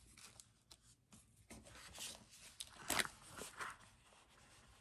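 Faint rustling and small clicks as handmade paper-craft pieces are handled, put down and picked up, loudest about three seconds in.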